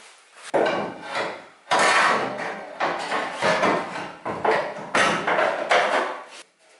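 Sheet-steel front wheel arch panel being offered up against a VW Bay Window campervan's body. A run of loud metal knocks and scrapes as the panel is pushed and shuffled into place, stopping shortly before the end.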